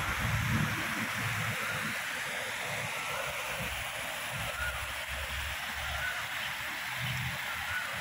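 Steady rush of water spilling over a low concrete weir into a shallow canal channel, with low rumbles that come and go underneath.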